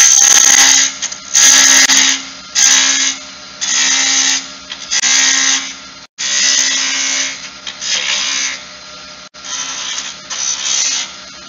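Wood lathe running with a steady hum while a gouge cuts the spinning wooden spindle in a string of short passes, about one a second, each a burst of cutting noise lasting under a second, as the beads are shaped toward round.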